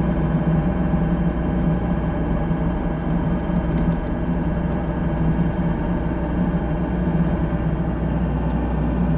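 Excavator's diesel engine running steadily at a constant pitch while the machine lifts and moves a disc on a chain.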